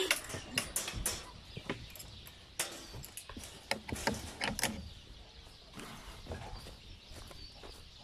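Scattered sharp clicks and knocks, irregular and most frequent in the first five seconds, then fewer.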